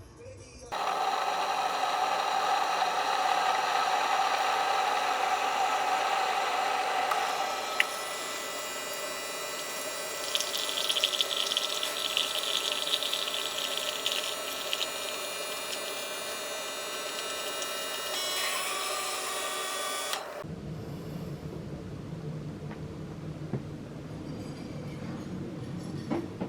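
A small electric motor appliance running steadily, its pitch shifting about eight seconds in, then switched off abruptly near the end; small clinks follow.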